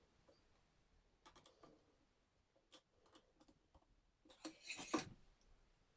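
Faint scattered clicks, then a short cluster of louder clicks and light knocks near the end, from the mini lathe's compound slide being handled and adjusted by hand.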